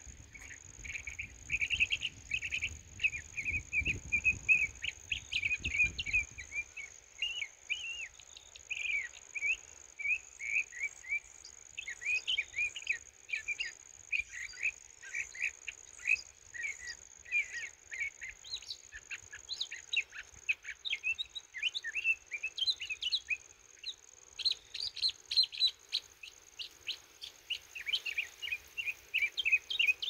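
Outdoor birdsong: many short, quick bird chirps and twitters throughout, over a steady high-pitched insect trill. A low rumble runs through the first six seconds or so.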